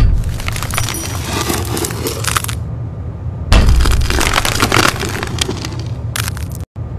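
Metal hand file rasping across a steel edge held in a vise, in two long spells of strokes, the second louder, with a brief scrape near the end.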